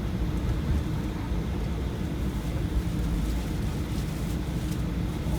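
Steady low rumble of an airplane's engines and airflow heard from inside the cabin, continuous and even throughout.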